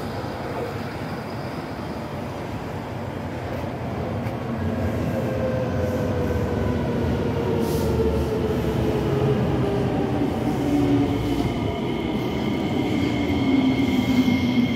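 R151 MRT train running: a rumble that grows louder, with electric motor whine in several tones gliding steadily downward in pitch. High steady squealing tones come in over the last few seconds.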